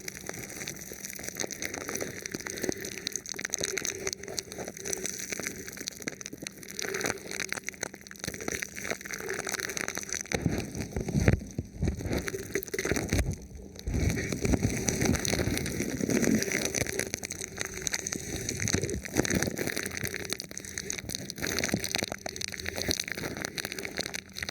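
Thin plastic film wrapped over a microphone being touched and rubbed, giving a dense, continuous crinkling crackle like rain, with heavier rubbing and thumps around the middle.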